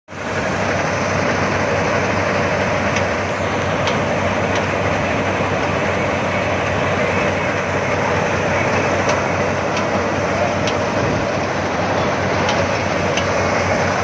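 KS-9300 combine harvester running, a steady loud machine noise with a low hum and a few faint ticks scattered through it.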